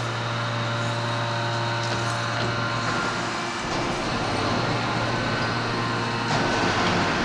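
Steady machine noise from a 2500-ton hot forging hydraulic press line and its forging manipulator at work: a strong low hum of the hydraulic power unit under a whir of several steady tones. The sound changes about three and a half seconds in and gets louder about six seconds in.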